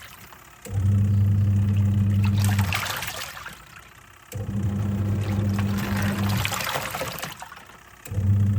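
Twin-tub washing machine in its wash cycle: the motor hums in runs of about two seconds, pausing between runs as the pulsator reverses, three runs in all, with water swishing and churning in the tub during each run.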